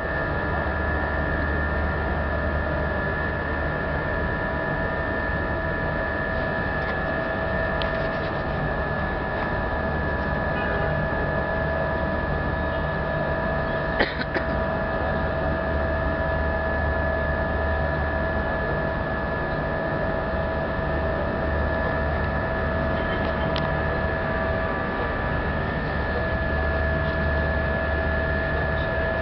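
A car ferry's engines running: a steady low drone with a high, steady whine over it, and a single sharp click about halfway through.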